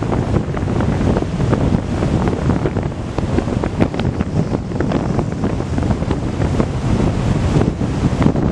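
Strong gusting wind buffeting the microphone, over the splash and wash of choppy, wind-driven waves on a lake.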